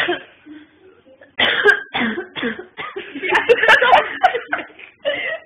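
A person coughing several times in short, loud bursts, with muffled voices.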